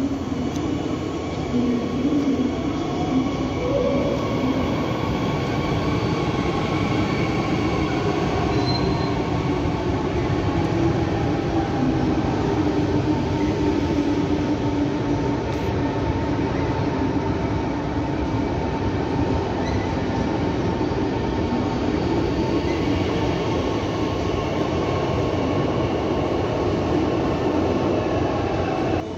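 Bombardier Talent 2 electric multiple unit running along the platform, its motor hum slowly gliding in pitch over steady running noise, with a few faint brief squeals from the wheels.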